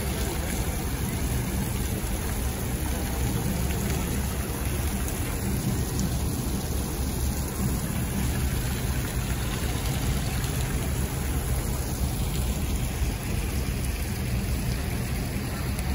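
Tiered ornamental fountain's jets splashing into its basin, a steady hiss of falling water over a low, constant rumble.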